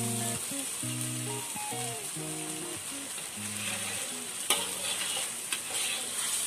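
Thick tomato-sauce gravy sizzling as it fries in a wok, stirred and scraped with a metal spatula, with a few sharp scrapes about two thirds of the way in. Quiet background music plays underneath.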